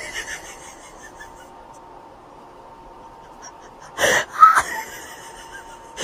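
Cat hissing: two short hisses in quick succession about four seconds in.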